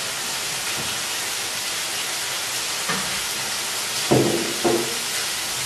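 Bacon sizzling steadily in a frying pan, frying in its own fat without oil. Two short, louder sounds come about four seconds in.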